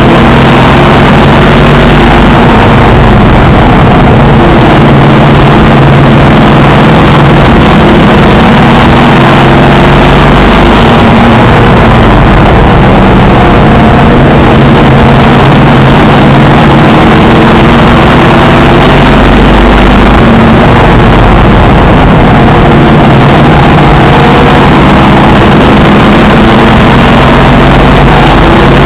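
Race car engine at racing speed heard from inside the car, its note rising and falling with the throttle through the corners. The engine is very loud and the recording is overdriven.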